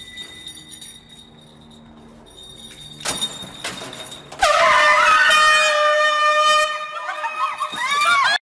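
Low rustling and scuffling, then about halfway through a loud, high-pitched scream bursts in and is held for about four seconds, wavering near the end before cutting off.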